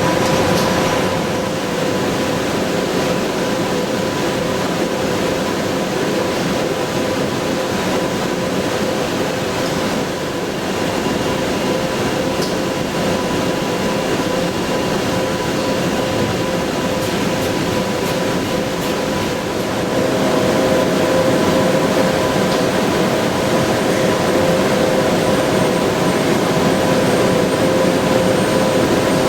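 Röders RXP801 high-speed milling machine cutting steel: the spindle whine runs steadily over the cutting noise. About twenty seconds in, the whine steps up slightly in pitch and the sound gets a little louder.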